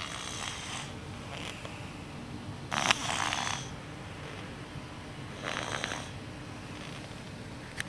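Six-month-old baby snoring in his sleep: a noisy snoring breath about every two and a half to three seconds, the one about three seconds in the loudest.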